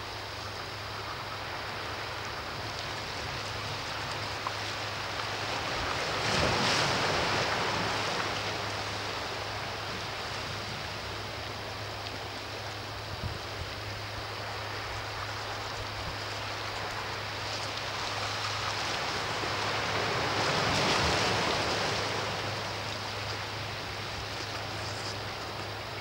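Sea waves washing ashore over a steady hiss of surf, with two larger waves swelling up and breaking, about a quarter of the way in and again about four-fifths of the way through.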